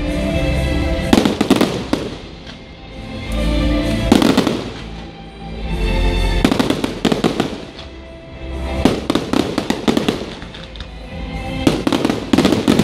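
Fireworks display: dense clusters of crackling and popping firework bursts that swell about every two to three seconds, with music playing underneath.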